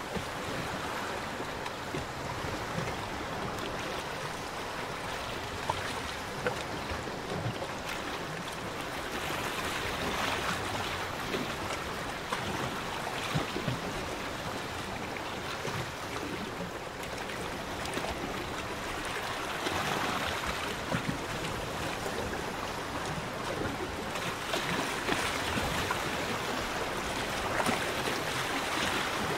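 Small lagoon waves lapping against a pontoon: a steady wash of water that swells every few seconds, with a few short sharp slaps.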